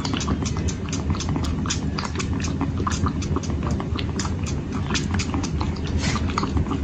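Kittens suckling milk from the silicone pacifier nipples of a feeder bowl: irregular sucking clicks and smacks, several a second, over a steady low hum.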